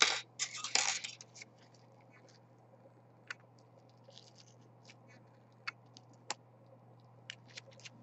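Gloved hands handling a 3D-printed plastic pen body and a metal ballpoint refill: a burst of scratching and scraping in the first second or so, then scattered light clicks and ticks.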